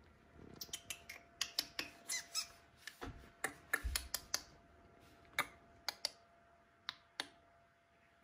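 Irregular crisp crackling and clicking from the crinkled paper lining of a puppy bed as a miniature schnauzer puppy shifts on it. The crackles come thick and fast in the first half, then thin out to a few single clicks.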